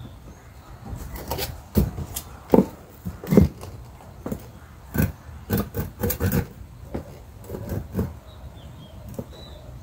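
Hand saw cutting into a small round log in short, uneven strokes. Several louder sharp knocks come between about two and three and a half seconds in.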